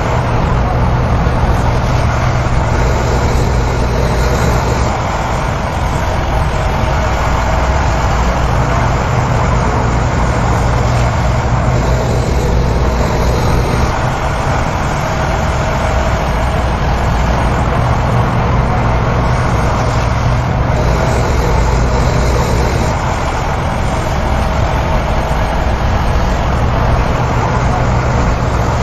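Heavy diesel engines of earthmoving machinery running steadily under load, a deep, continuous drone that eases slightly now and then.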